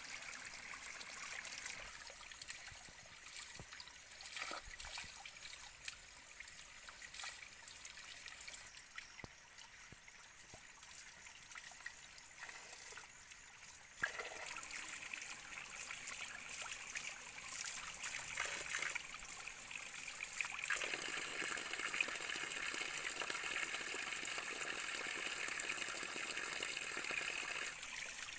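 Shallow stream trickling over rocks, with scattered small clicks and splashes. The running water grows louder and steadier in the last few seconds.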